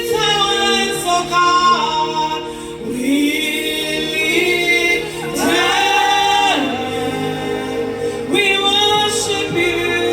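Gospel worship song: singing voices holding long, sliding notes over a steady sustained backing.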